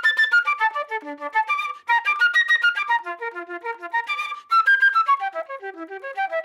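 Flute playing a fast, athletic ringtone melody whose runs of quick notes sweep up and down from the bottom of its range to the top. It comes in three phrases, broken by short breaks about two and four and a half seconds in.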